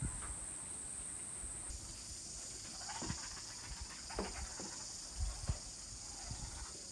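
Insects droning in a steady high-pitched chorus; about two seconds in, a second, slightly lower drone joins it. A few faint knocks and thin chirps sound over it.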